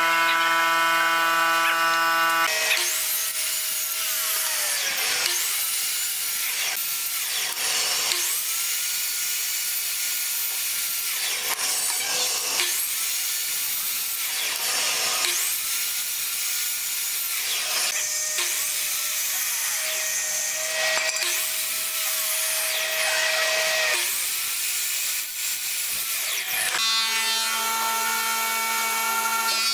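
Sliding miter saw cutting through bent wooden strips again and again, one cut every two to three seconds. Each cut has the motor's whine rising as it spins up and falling away as it winds down. A steady humming tone is heard at the start and again near the end.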